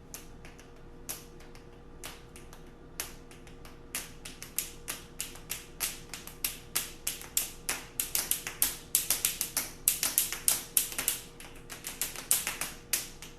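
A series of sharp clicks or taps, about one a second at first, quickening to several a second from about four seconds in and denser still after about eight seconds, over a faint steady hum.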